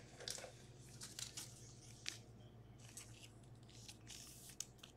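Faint, scattered rustling and light scraping of a trading card being handled and slid into a clear plastic sleeve, densest around four seconds in, over a low steady hum.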